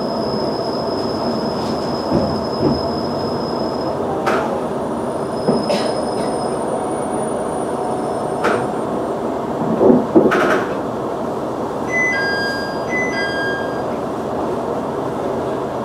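KiHa 110 diesel railcar easing to a stop and standing at a platform, its diesel engine running with a steady rumble. A steady high whine stops about four seconds in, several short sharp hisses and clicks follow, and two short electronic two-tone beeps sound near the end.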